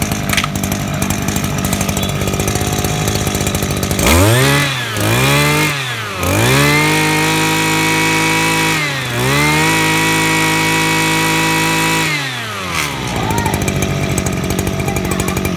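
Small 26cc engine of a used Robin Makita gooseneck brush cutter idling, revved up twice in quick succession about four seconds in, then held at high revs for about six seconds with a short dip in the middle before dropping back to idle.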